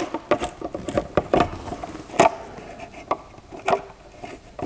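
Irregular light clicks, taps and scrapes of a screwdriver turning a screw through an RC jet's ordnance pylon while the pylon is handled, with one sharper knock about two seconds in.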